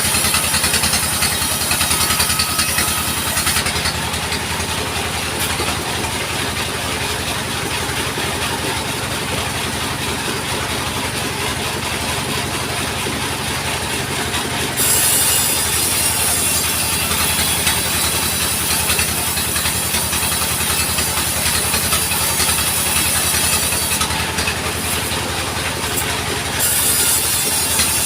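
Sawmill machinery running steadily: the engine's even low chugging, with a high hiss over it that drops out a few seconds in, returns about halfway through a little louder, and drops out briefly again near the end.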